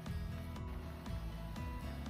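Background music with a steady beat, a new note about every half second.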